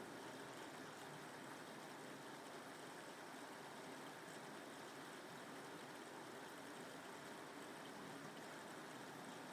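Steady rain falling, an even, soft hiss with no thunder.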